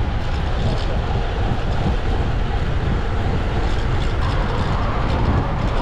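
Steady, loud wind rush buffeting the microphone of a camera riding along on a road bike at speed, a deep, even rumble with no break.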